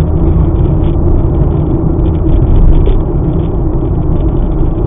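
Car driving along a paved road, heard from inside the cabin: a loud, steady rumble of road and engine noise.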